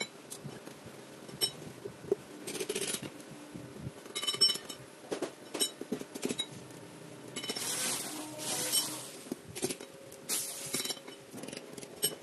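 Metal cycloid reducer parts clinking and tapping as they are handled and fitted, with sharp ringing clicks scattered throughout. There are several short bursts of hiss, and a faint steady hum runs underneath.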